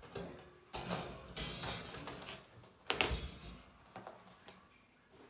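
Rustling and light clattering of chrome wire dish-drainer parts and their packaging being handled, in several short bursts, the loudest about three seconds in.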